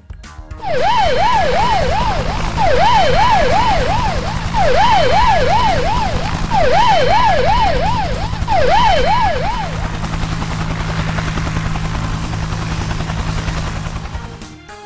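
Siren sound effect in five bursts of quick rising-and-falling wails, about three sweeps a second, over a steady low helicopter drone. The siren stops about nine and a half seconds in and the drone continues alone until near the end.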